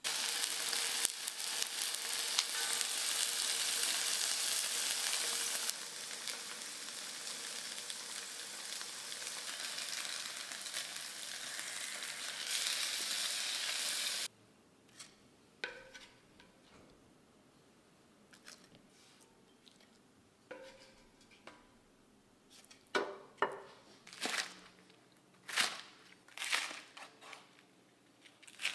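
Tofu frying in hot oil in an enameled cast-iron pan: a loud, steady sizzle that cuts off suddenly about halfway through. Near the end, a knife chops green onions on a wooden cutting board in a string of sharp chops.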